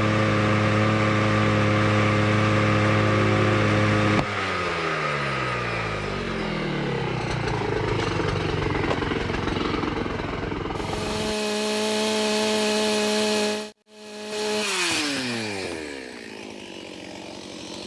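Two-stroke chainsaw running with its chain removed, held at steady high revs, then slowing with a falling pitch about four seconds in. After an edit it runs steady again, cuts out briefly, and winds down once more with a falling pitch near the end.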